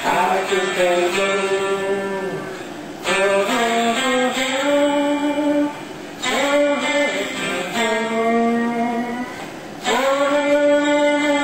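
Electric guitar playing a slow lead line: long held notes that bend and slide, in phrases of a few seconds, each starting with a fresh picked attack.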